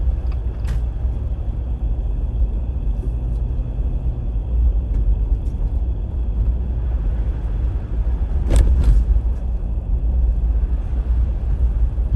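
Steady low rumble of a car driving on a snowy road, heard from inside the cabin. There is one brief sharp knock about eight and a half seconds in.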